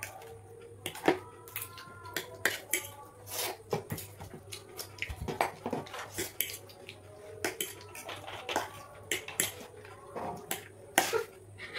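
Forks clinking and scraping on plates as two people eat noodles, in irregular light taps.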